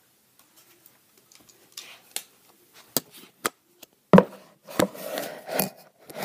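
Handling noise from the camera being picked up and set back upright: scattered clicks and knocks, the loudest about four seconds in, then a stretch of rubbing and fumbling with more knocks.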